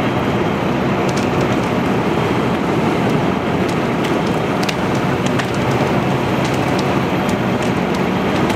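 Heavily involved building fire burning through a motel's second floor and roof: a steady rushing noise with scattered sharp crackles and pops.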